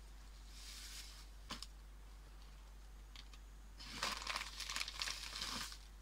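Plastic packaging crinkling as it is handled, with a dense crackle for about two seconds in the second half. Before it there is a soft rustle and a single click.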